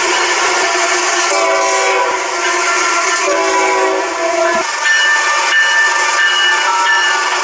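A road bridge singing under passing traffic: a loud hum made of several tones at once, over a steady hiss of tyres. The tones change pitch a few times, about a second in and again near the middle.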